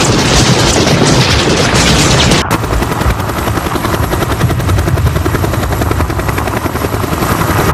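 A loud, dense din of battle that cuts off suddenly about two and a half seconds in. It gives way to a Bell UH-1 'Huey' helicopter's two-blade rotor beating in a fast, steady rhythm.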